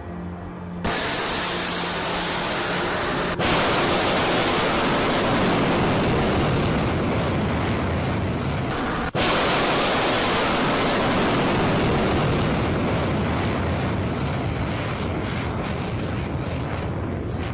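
Ballistic missile's rocket motor at launch: a loud, steady rushing noise that starts suddenly about a second in. It steps up abruptly about three seconds in and breaks off for an instant near nine seconds.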